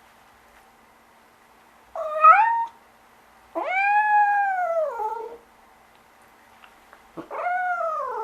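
Domestic cat meowing three times: a short rising meow about two seconds in, a longer arched meow that drops in pitch as it trails off, and a third starting near the end.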